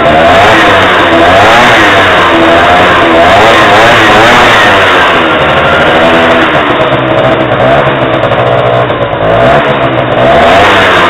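TKR Furious 50cc two-stroke scooter engine with a Yasuni R exhaust, running loud and revved up and down again and again, its pitch rising and falling in repeated waves.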